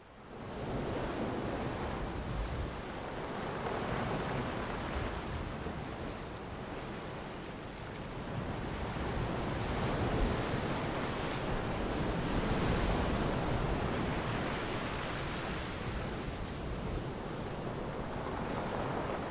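Steady wash of sea waves with some wind, fading in from silence at the start and swelling and easing gently.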